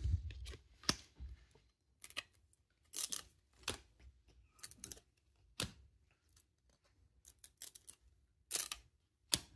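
A stack of football trading cards being flipped through by hand, each card slid off the top of the stack: about a dozen short, crisp card slides and flicks at an irregular pace, with brief pauses between them.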